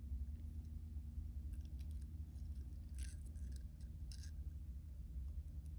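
Pliers working jewellery wire: a few faint metallic clicks and scrapes as the wire is bent over, the two clearest past the middle, over a steady low hum.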